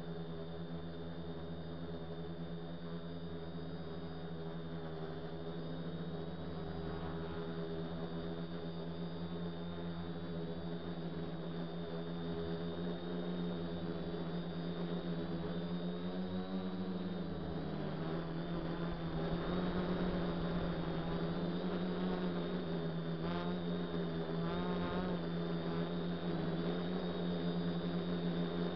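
DJI F450 Flame Wheel quadcopter's motors and propellers humming steadily, heard from its own onboard camera. The pitch wavers about two-thirds of the way in, then settles slightly higher and a little louder.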